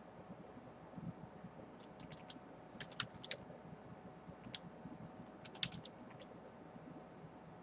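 Faint keystrokes on a computer keyboard: several short runs of key clicks, with pauses between them, as commands are typed into a console.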